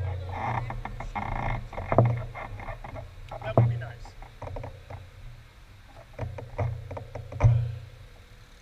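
A few sharp knocks and low thuds through the handlebar-mounted camera's housing, the strongest about two seconds in, a second and a half later, and near the end, with faint speech between them.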